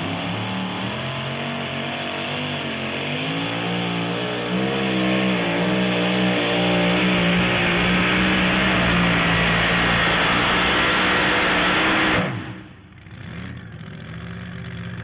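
Supercharged V8 of a two-wheel-drive pulling truck running at full throttle under load while pulling the sled, its pitch wavering and climbing, then holding high. About twelve seconds in the throttle is cut sharply at the end of the pull, and the engine drops back to a low idle.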